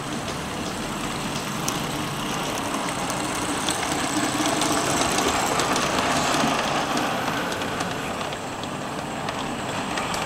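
Garden-scale model train, a steam-outline locomotive hauling tipper wagons, running along the track close by: a steady rushing noise that swells as the train passes, with faint clicks.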